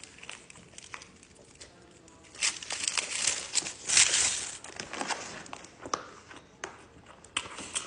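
Close-miked eating sounds: chewing and mouth noises, with louder crinkly, crunchy bursts from about two and a half to four and a half seconds in.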